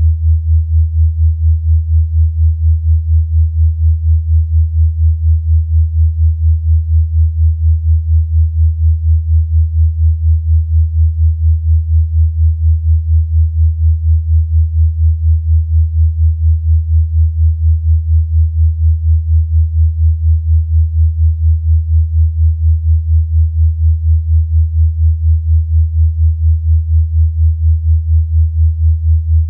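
Synthesized low pure tone, a deep steady hum that pulses evenly several times a second: a meditation frequency track meant for relief of teeth grinding.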